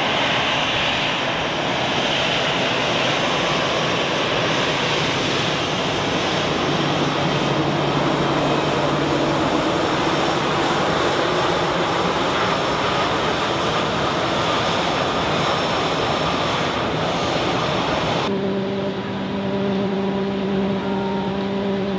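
Jet airliner engines running as aircraft taxi, a loud steady roar. About 18 seconds in it changes suddenly to a quieter, steadier engine hum with a clear droning pitch.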